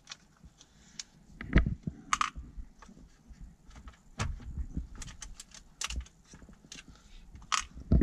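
Plastic centre-console trim being handled and worked loose by hand: scattered clicks, scrapes and knocks, the loudest a thump about one and a half seconds in.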